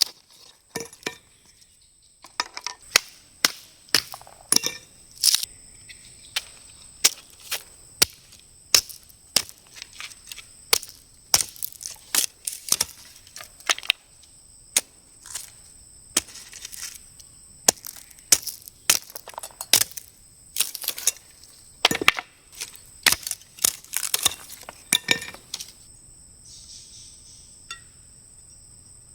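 A quick, irregular run of sharp cracks and knocks, a few a second, that stops near the end. Under it runs a steady, high-pitched buzz of insects.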